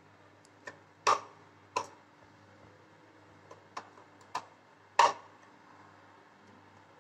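Sharp, irregular clicks and knocks of a chrome wall-mounted soap dispenser being handled and pushed against its mounting on a ceramic-tiled wall, about seven in all, the loudest about a second in and about five seconds in.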